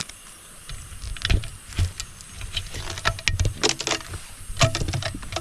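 Irregular rustling, clicks and knocks of close handling, from hands or feet moving through vegetation or things being handled near the microphone. The sounds come in uneven clusters, with a few low thuds.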